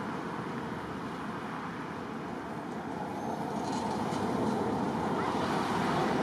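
Steady outdoor background noise, an even hiss and rumble with no distinct sounds standing out, growing slightly louder toward the end.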